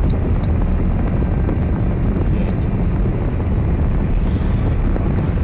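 Steady low rumble of a moving car, road and wind noise on a dash-cam microphone, with no distinct impact.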